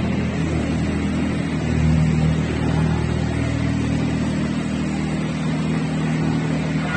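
Skid steer loader's engine running steadily, its pitch rising and falling slightly with load.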